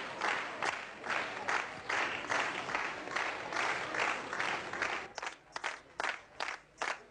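A crowd clapping in unison, about two claps a second, the claps growing sharper and more distinct about five seconds in.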